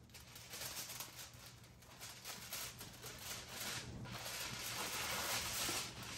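Aluminium foil crinkling and rustling as it is peeled back off a hot glass baking dish, getting louder over the last couple of seconds.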